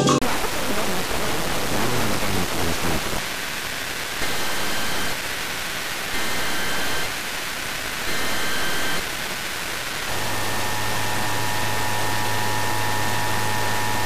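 FM radio static from a weak station. Through it come three one-second bursts of an Emergency Alert System SAME data header about two seconds apart. About ten seconds in, the steady two-tone EAS attention signal starts, with a low hum under it.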